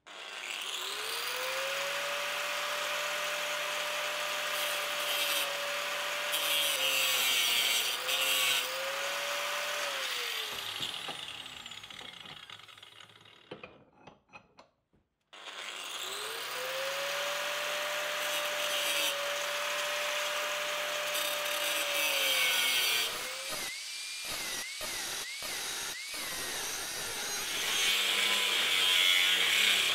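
Angle grinder with a thin cut-off disc cutting into a square steel bar held in a vise. The motor spins up to a steady whine whose pitch dips as the disc bites, winds down and stops about halfway through, then starts again and keeps cutting.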